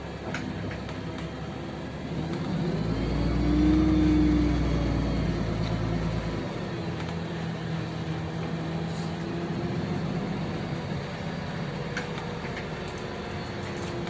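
LiAZ-5292 city bus running, heard from inside the passenger cabin as it drives. The engine drone swells for a couple of seconds about three seconds in, with a whine rising and falling in pitch, then settles to a steady drone.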